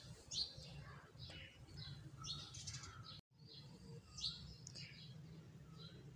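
Small birds chirping in short, scattered calls over a steady low hum; the sound cuts out for a moment about three seconds in.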